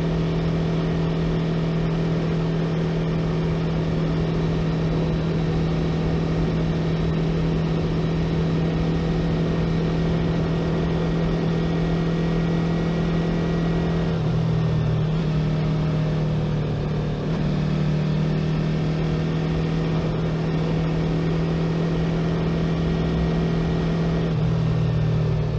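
Yamaha YZF-R3's parallel-twin engine running at a steady cruise, with wind and road rush over it. Its note shifts a little about halfway through and again near the end.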